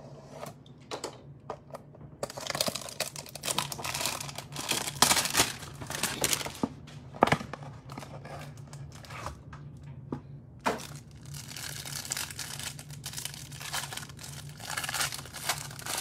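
A utility knife slitting the plastic shrink-wrap on a cardboard trading-card hanger box, then the wrap and cardboard being torn and crinkled as the box is opened. It starts with a few sharp clicks, then comes in two long stretches of rustling with a short pause about ten seconds in.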